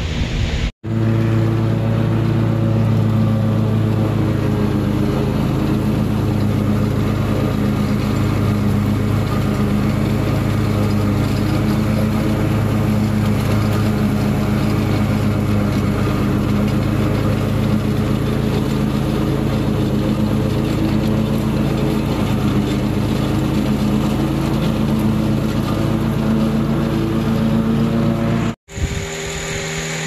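Lawn mower engine running at a steady speed while cutting grass, an even hum with no change in pitch. It cuts off abruptly near the end and gives way to a different steady running sound.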